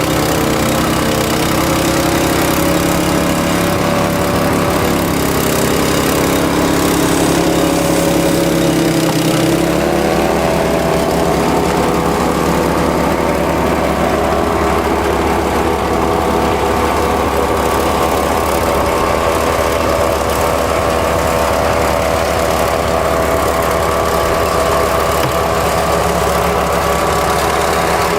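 Engine of a snow-clearing machine running steadily; about nine seconds in its note changes and then holds at the new speed.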